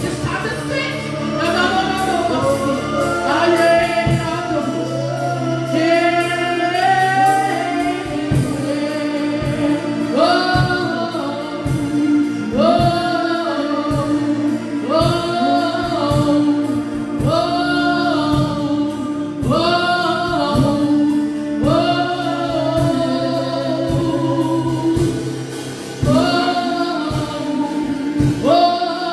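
Gospel worship singing with a choir and instruments: a repeated sung phrase over a sustained chord.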